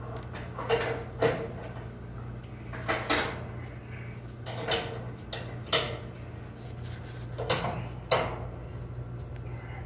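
Sharp clicks and knocks of hand work on a gas dryer's burner gas valve assembly as its solenoid coils are handled, about eight of them, some in pairs, over a steady low hum.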